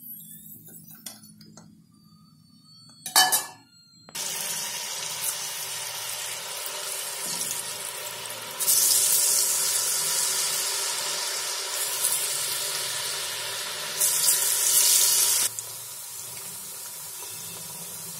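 Potato sticks deep-frying in hot oil: a dense, steady sizzle that sets in abruptly about four seconds in and grows louder and hissier twice in the middle. Before it, a quiet stretch with a single sharp clink.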